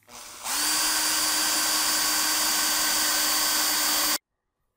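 Cordless drill drilling a hole in a mounting board: the motor starts softly, comes up to full steady speed about half a second in, runs evenly for more than three seconds, then cuts off suddenly.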